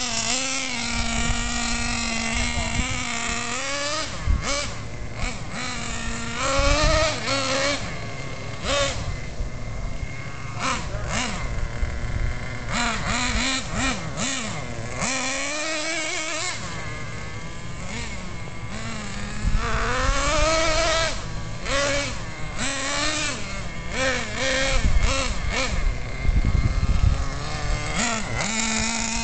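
Traxxas Jato 3.3 nitro RC car's small two-stroke glow engine, idling steadily at first and near the end, and in between revving up and down over and over as the car is driven, its pitch rising and falling. The engine is being broken in on 10% nitro fuel.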